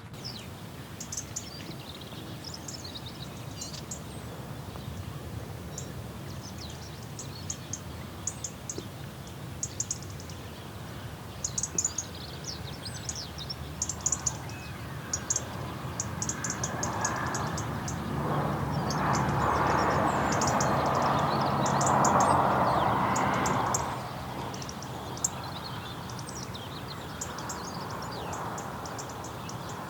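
Small birds chirping and calling over a steady outdoor background hiss. About halfway through, a louder rushing noise with a low hum swells up for several seconds and then cuts off suddenly.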